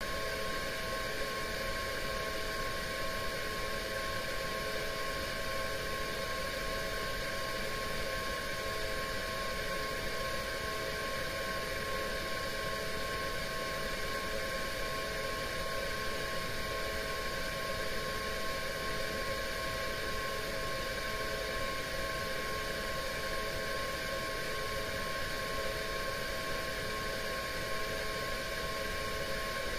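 Steady underwater hiss and hum in an aquarium tank, with several constant humming tones, one of them pulsing, heard through a submerged camera.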